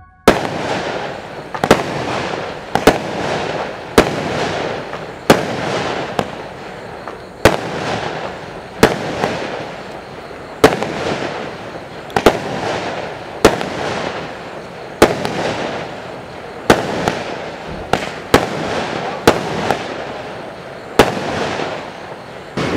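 Black Spot 16's, a 16-shot consumer fireworks cake, firing its shots one after another. Each shot is a sharp bang, coming about every second and a half, followed by about a second of noise that fades.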